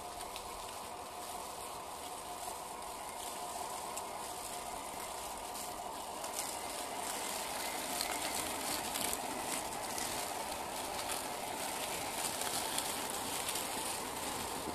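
The electric motor and gears of a 1/10-scale Bronco RC crawler whirring as it drives over dry leaf litter, growing louder as it approaches. From about halfway through, dry leaves crackle under its tyres.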